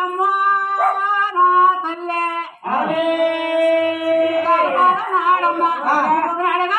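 A high voice singing without words, holding long notes that step from pitch to pitch, then breaking into quick wavering turns in the second half.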